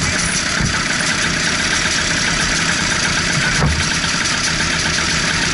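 Racing kart engine idling steadily at close range, with one brief knock about three and a half seconds in.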